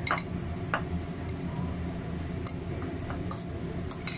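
A metal fork stirring corn kernels mixed with cornstarch in a ceramic bowl, giving a few light, irregular clicks of the fork against the bowl over a steady low hum.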